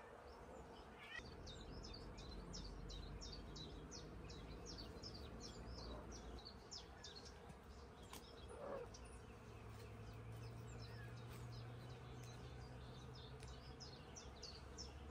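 Small songbird chirping over and over, a quick run of short high notes several a second, over a low steady outdoor background hum. One brief lower-pitched call comes about halfway through.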